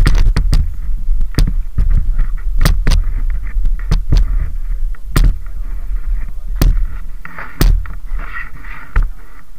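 Mountain bikes in an uplift trailer rack knocking and clanking against each other and the rack, with a dozen or so sharp knocks over a steady low rumble.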